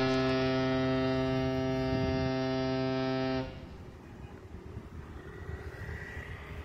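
A loud, steady, low droning tone, horn-like and unchanging in pitch, that lasts about three and a half seconds and cuts off abruptly, followed by faint street noise.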